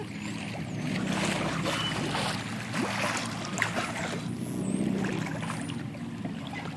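Water rushing and splashing along the hull of a boat under way, over a steady low hum. A few faint, high, thin whistling glides come and go.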